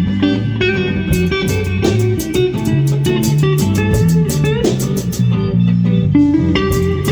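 A live rock band jamming: electric guitar and bass guitar playing over drums, with regular cymbal strikes.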